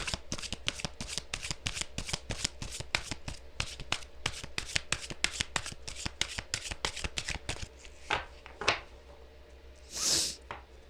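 Esther and Jerry Hicks' Money and the Law of Attraction card deck being shuffled by hand: a rapid run of card flicks for about seven and a half seconds, then a few separate taps and a brief swish near the end.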